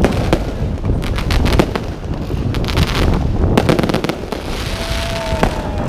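A fireworks display: many sharp bangs and pops from bursting shells, some in quick clusters, over a continuous low rumble of booming and echo. A crackling hiss rises for a moment about four to five seconds in.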